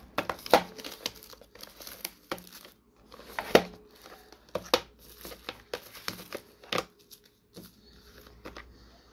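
Thin plastic shrink-wrap being torn and peeled off a small cardboard box, crinkling in a run of irregular crackles with a few louder snaps.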